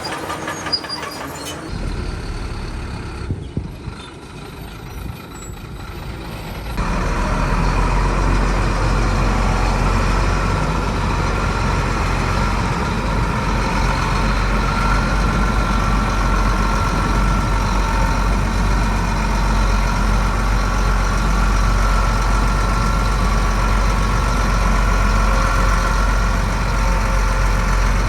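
Heavy diesel earthmoving machinery engine running steadily, quieter with some clicks and knocks at first, then much louder and steady from about seven seconds in.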